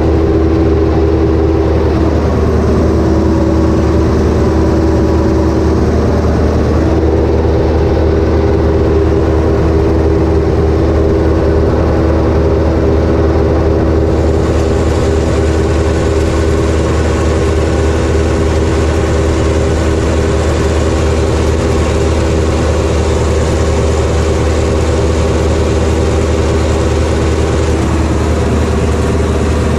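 An Ursus tractor's diesel engine running steadily as the tractor drives, heard from inside the cab. Its pitch dips briefly a couple of seconds in, again a few seconds later, and near the end.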